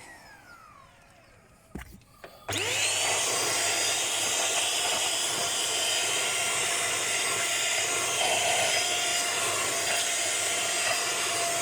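Russell Taylors VC-20 handheld cyclone vacuum cleaner. Its motor winds down faintly at first, with a click in the quiet. About two and a half seconds in it is switched on: the whine rises quickly to a steady high pitch and the motor runs on loud and steady.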